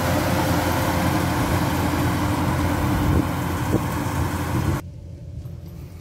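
Kubota DC-105X rice combine harvester running at work, its diesel engine and threshing machinery making a loud, steady drone. The sound drops away abruptly near the end, leaving much quieter outdoor noise.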